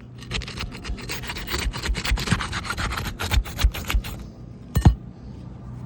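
Rapid scraping and rubbing of a tool being worked under asphalt roof shingles to break their adhesive seal strips, stopping a little after four seconds in. A single sharp knock follows, the loudest sound.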